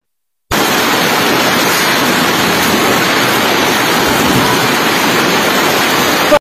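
Heavy hail mixed with rain pelting down on paving and tiled roofs: a dense, steady hiss and clatter that starts abruptly about half a second in.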